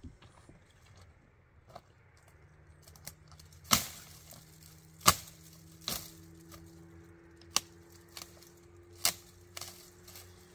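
A series of sharp knocks, about six of them at irregular intervals over several seconds, the loudest a little under four seconds in and about five seconds in, over a faint steady low hum.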